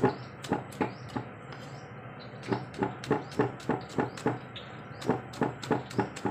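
Knife chopping green chillies into rings on a wooden chopping block: sharp chops about three a second, in runs broken by a pause of about a second and a half near the start and a shorter one later.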